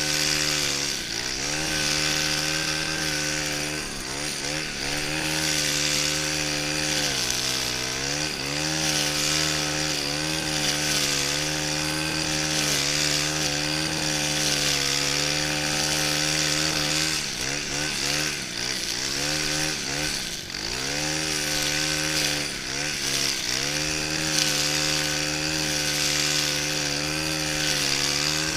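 Stihl FS 131 brushcutter's 36cc engine running at high revs while trimming grass. Its pitch dips briefly and climbs back several times as the throttle eases and the load changes, over a steady high hiss.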